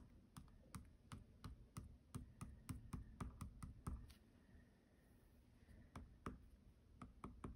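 Faint, quick taps of a drawing tip dabbing dots onto paper, a few taps a second, with a short lull in the middle.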